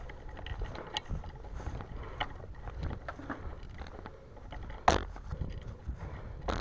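Handling noise of a player on the move with an airsoft rifle: a run of small clicks and rattles from the gun and gear, with a sharper click about five seconds in and another near the end.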